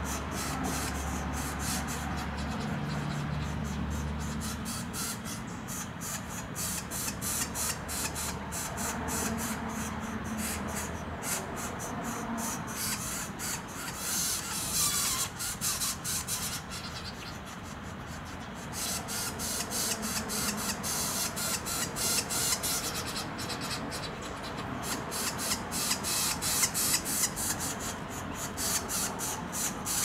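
Northern flicker nestlings begging from inside the tree-cavity nest, a raspy hissing buzz pulsing rapidly, while being fed by a parent.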